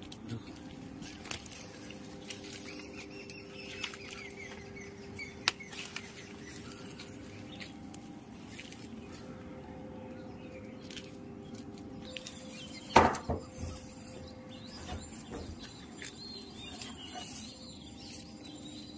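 Mango leaves and branches rustling, with small clicks and knocks, as a bamboo fruit-picking pole with a cloth catch-bag is worked through the tree. About two-thirds of the way through comes a louder, longer burst of rustling and cracking.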